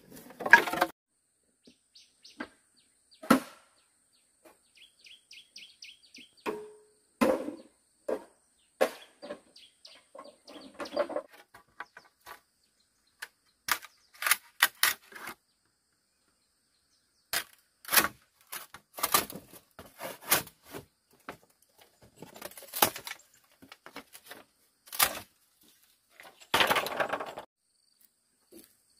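Irregular knocks and clacks of bamboo being worked with hand tools, some strokes sharp and loud, with pauses between bursts. A quick run of bird chirps comes about five seconds in.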